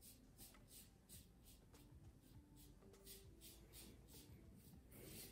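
Faint, quick scraping strokes of a 1940s Gillette Super Speed double-edge safety razor cutting stubble through shaving lather, about three short strokes a second.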